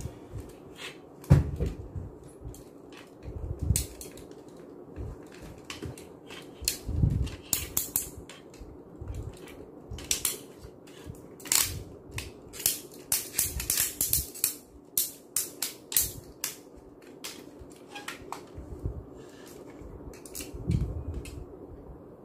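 Miniforce Stego Magma plastic transforming toy robot being handled and transformed: its parts clicking, snapping and knocking as they are turned and locked into place. The clicks come irregularly and are busiest in the middle stretch.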